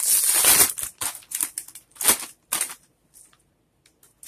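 Foil-lined plastic snack bag being pulled open and handled: a long, loud crinkling crackle at the start, then a few short separate crinkles about half a second apart.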